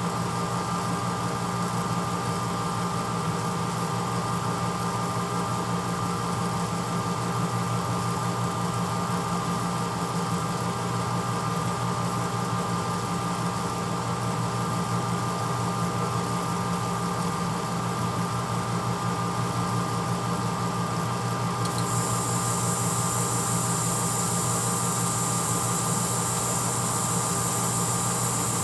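1986 Hotpoint Potwasher dishwasher running mid-cycle: a steady motor hum with a constant high tone. A high hiss comes in suddenly about three-quarters of the way through and keeps going.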